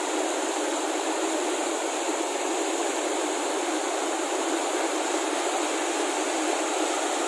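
Mountain stream rushing over boulders in white-water rapids: a steady, even rush of water.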